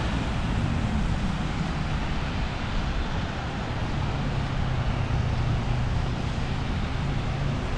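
A vehicle running steadily: a low engine drone over an even rumble.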